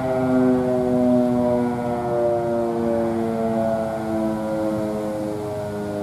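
GCS Model 5 eight-port outdoor warning siren sounding a chord of several tones that slides slowly down in pitch as the siren winds down.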